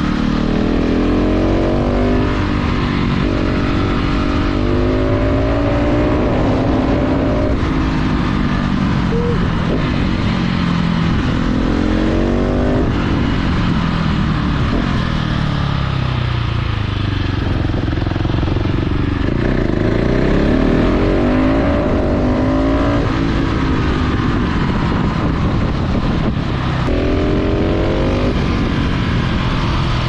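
KTM 690 SMC R's single-cylinder engine through a full LeoVince exhaust, under way on a winding road. The engine note climbs as the throttle opens and drops away again, over and over, over a steady rush of wind.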